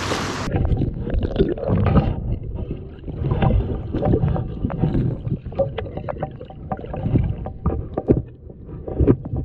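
Stream water heard from underwater by a submerged camera: a muffled, fluctuating low rush with many scattered clicks and pops. The high sounds cut off about half a second in, as the camera goes under.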